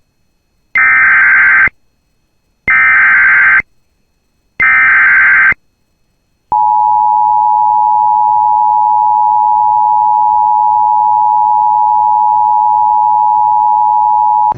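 Emergency Alert System tones opening a National Weather Service severe thunderstorm warning. First come three bursts of SAME digital header data, each about a second long with about a second between them. Then the steady two-tone attention signal sounds for about eight seconds.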